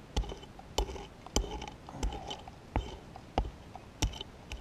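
A prospecting pick chopping into gravelly, stony ground in steady strokes, about one every half-second or so, each strike a sharp crunch with a short gritty ring. It is digging down to a metal detector target.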